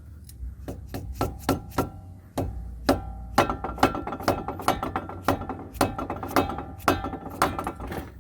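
Dead blow hammer tapping a brake caliper piston compressor tool, about two light blows a second, each with a faint metallic ring. The taps jolt a caliper piston that is stuck and will not compress. Lighter handling clicks come first, and the regular tapping starts a couple of seconds in.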